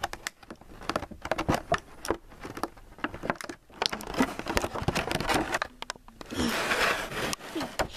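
Clear plastic toy packaging crinkling and crackling in the hands as it is pulled open, a quick run of sharp crackles with a louder rustle about six and a half seconds in.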